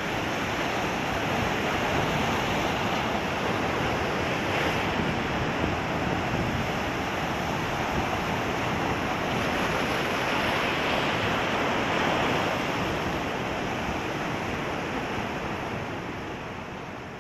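Sea surf breaking and washing over a rocky shore, a steady rushing of water with some wind on the microphone; it slowly fades out near the end.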